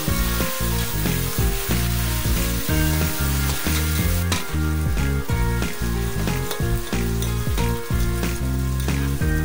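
Oil sizzling in a wok as chopped garlic, onions and tomatoes are sautéed, with a metal spatula stirring and scraping the pan, more often from about four seconds in. Background music with a bass line plays under it.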